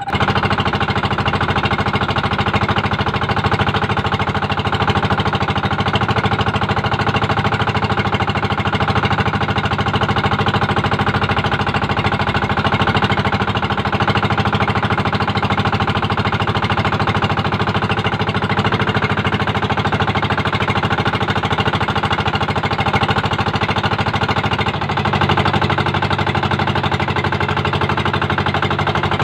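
Small engine of a motorized outrigger boat (banca) running steadily under way, a fast rattling beat of firing strokes. About 25 seconds in it dips briefly and settles to a slightly different note.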